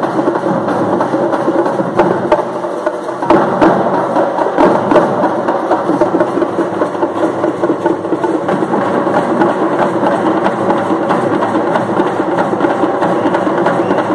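Parai frame drums beaten with sticks by a group of drummers, playing a fast, dense, continuous rhythm. It gets a little louder about three seconds in.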